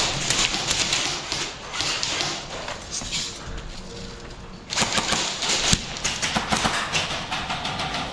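Footsteps and gear rustling of a player on the move, an irregular clatter of steps. It eases off for a couple of seconds, then comes back louder about halfway through.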